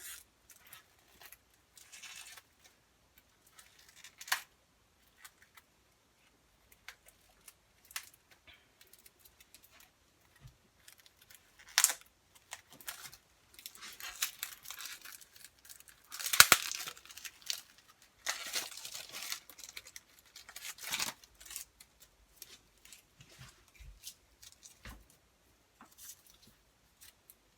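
Quiet, scattered rustling and crinkling handling noises with small clicks, the loudest rustles about halfway through.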